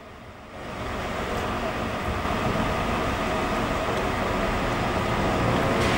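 Steady rushing, rumbling ambience at a brush fire being hosed down, fading in within the first second and growing slightly louder.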